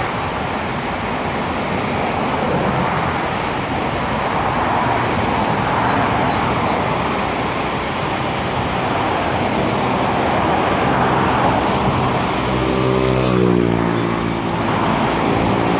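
Steady rush of road traffic mixed with water pouring over the Fairmount Dam weir on the Schuylkill River. About ten seconds in, a vehicle engine approaches and passes, its pitch dropping as it goes by.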